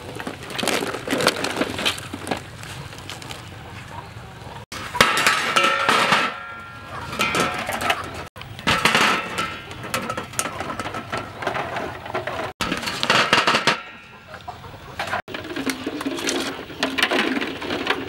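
Hard-boiled duck eggs being scooped from a pot with a wire skimmer and set down on a metal tray: a run of clinks and knocks of eggshell and metal. The sound breaks off abruptly several times.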